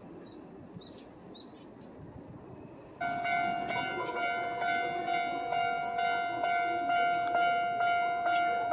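Japanese railway level-crossing warning bell starts suddenly about three seconds in and rings on in a quick, even, repeating beat, signalling that a train is approaching.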